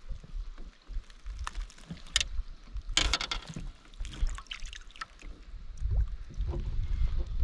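Wind buffeting the microphone in a small fishing boat, with scattered clicks and knocks and a short loud hiss about three seconds in.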